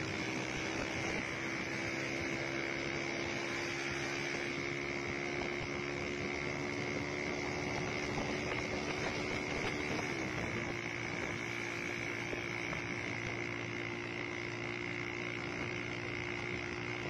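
Motorcycle running at a steady cruising speed with wind noise over the microphone; the engine note holds steady, dips briefly about ten seconds in, then settles again, under a steady high whine.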